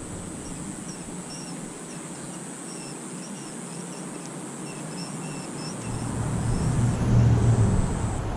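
Outdoor background of distant road traffic, with a low rumble that swells about six seconds in as a vehicle passes. Faint, short, repeated bird chirps sound through the middle.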